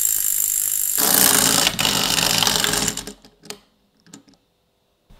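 Clockwork mechanism of a wind-up toy figure whirring as it runs, stopping abruptly about three seconds in, followed by a few faint clicks.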